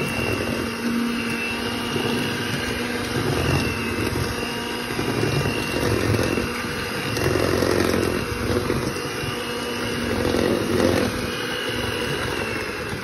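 Handheld electric mixer running steadily, its beaters churning through crumbly peanut butter cookie dough in a stainless steel bowl, the sound swelling and easing as the beaters move through the dough.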